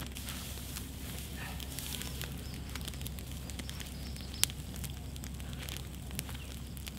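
Bonfire of dry hay and sticks burning hard, with constant crackling and popping and one sharp, loud snap about four and a half seconds in.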